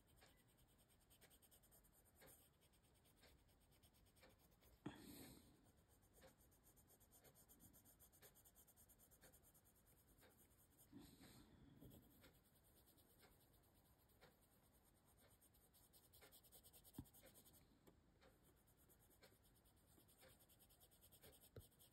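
Faint scratching of a coloured pencil shading on paper in short repeated strokes, with a couple of slightly louder rubs about five and eleven seconds in.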